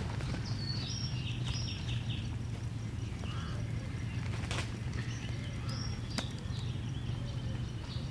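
Birds chirping in short, high calls, one a quick run of about five notes, with a few sharp crackles from a wood fire burning in a metal fire basket, over a steady low hum.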